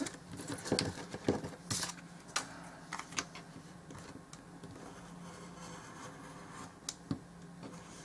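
Craft knife cutting through glued layers of poster board on a cutting mat: a run of short scratchy clicks and scrapes over the first three seconds or so, then sparser and quieter, with one more click a little before the end.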